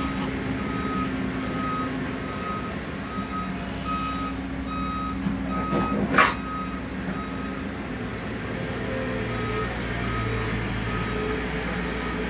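Heavy vehicle's reversing alarm beeping about twice a second, with a pause for a couple of seconds in the second half, over a steady diesel engine drone. A brief rising squeal about six seconds in is the loudest moment.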